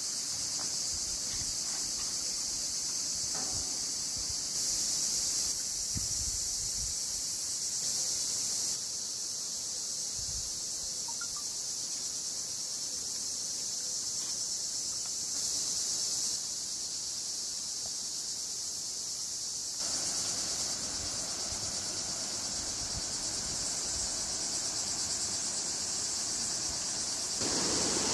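Steady high-pitched insect chorus shrilling without a break. From about two-thirds of the way through, a broader rushing of stream water joins in beneath it.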